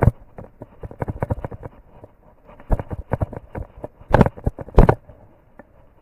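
Irregular knocks, bumps and rubbing from an action camera being handled, with two loud thumps about four and five seconds in.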